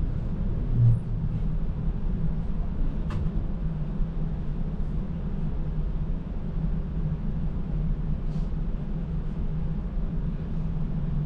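Steady low rumble of a TTC streetcar running, heard from inside the car, with a brief low thump about a second in and a couple of faint clicks.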